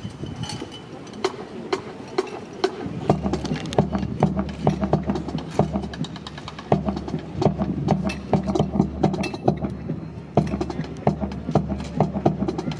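Rifle drill team working their rifles in a fancy drill display: many sharp, irregular clacks and slaps of hands and rifles. A low steady hum joins about three seconds in.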